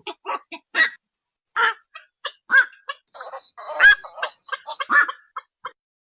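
Black-crowned night heron calling: a quick series of short, harsh quok calls, several a second at times, with the loudest call about four seconds in.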